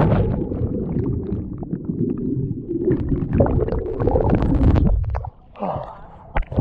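Muffled low rumbling and gurgling of water heard by a submerged action camera, just after it has plunged in with bubbles. Just after five seconds in it breaks the surface, with a few short splashes.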